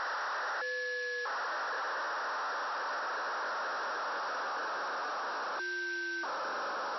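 Demodulated audio from an SDR receiver tuned to the FUNcube-1 (AO-73) 2 m downlink: a steady radio hiss. It is broken twice, about a second in and about six seconds in, by a short clean tone that silences the hiss for about half a second; the second tone is lower than the first.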